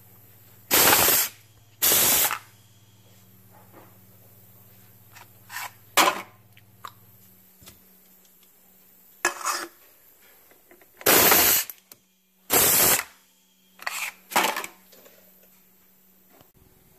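Homemade pneumatic can crusher run by a push-button air valve, cycling twice: each cycle is a pair of loud, short blasts of rushing air about a second apart as the piston drives down on a soda can and then retracts. Smaller taps and clinks of cans being handled come between the cycles.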